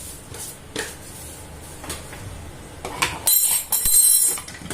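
Kitchen utensils handled while spices are added to a bowl: a few light clicks, then about three seconds in a loud, high-pitched scraping squeal lasting about a second and a half.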